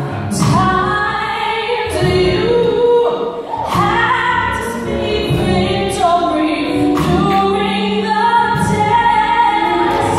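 Female soloist singing with vibrato into a microphone, a choir holding sustained notes beneath her.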